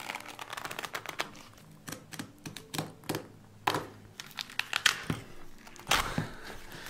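The inner layers of a leather sneaker's sole being torn and pulled apart by hand: compressed cardboard and fiberboard crinkling and ripping in an irregular run of sharp crackles and rustles.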